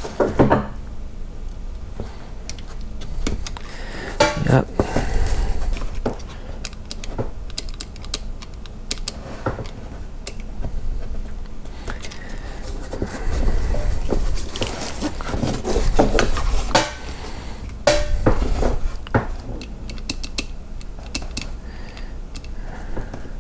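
Utility knife blade lightly scoring and scraping the outer jacket of a 12-gauge three-wire extension cord as the cord is bent and handled, giving irregular scrapes and small clicks, louder in a few stretches.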